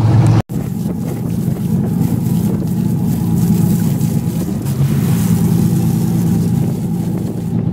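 Fishing boat's engine running steadily. The sound drops out completely for a moment about half a second in.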